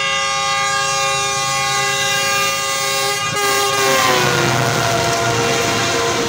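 Karakoram Express locomotive horn held in one long blast as the train comes through the station; the horn's pitch drops about four seconds in as the locomotive passes, and the rush of the train and its wheels takes over.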